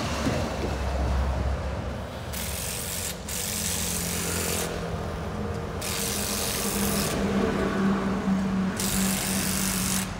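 Engine of a truck-mounted crane running with a steady hum and a steady low tone. Four sharp-edged bursts of hiss, each lasting about a second, come and go on top of it.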